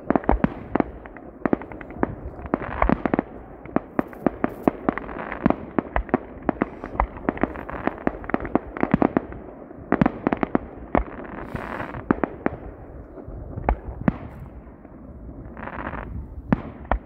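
Fireworks display: a rapid string of sharp bangs and crackling reports from bursting shells, dense at first and thinning out after about two-thirds of the way in, with a short hiss near the end.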